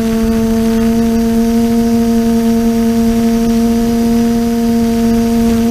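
TBS Discovery quadcopter's brushless motors and propellers humming at one steady pitch, recorded by the onboard camera, over a constant rush of wind and rotor wash.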